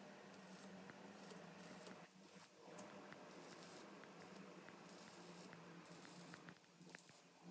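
Near silence: faint steady hiss with a low hum and a few faint ticks.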